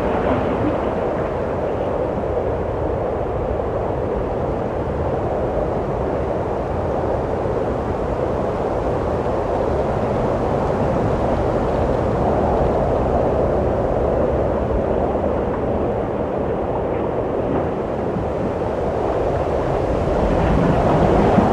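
Steady wind blowing, a low rushing noise that swells and eases slowly.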